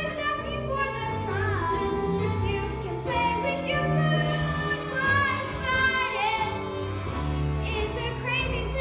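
Young performers singing a show tune with instrumental accompaniment and a moving bass line.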